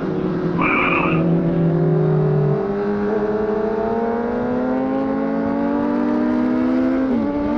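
Honda CBR1000RR SC57's inline-four engine pulling hard, its note rising steadily as the bike accelerates in one gear, then dropping and climbing again near the end at a gear change. A short high tone sounds about a second in, over a constant rush of wind.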